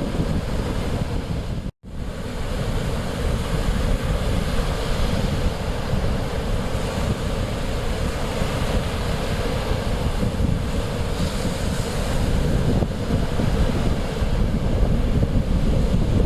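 Mediterranean Sea waves washing on the shore, with wind buffeting the microphone in a heavy low rumble. The sound cuts out completely for a moment about two seconds in.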